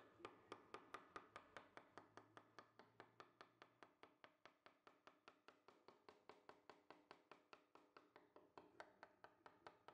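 Round wooden carving mallet giving a carving gouge light, quick taps, about four to five a second, as the gouge cuts a leaf outline into red cedar.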